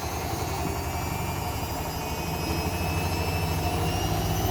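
Vestel washing machine running its service-mode test: a steady hum with faint high whines slowly rising in pitch, growing a little louder.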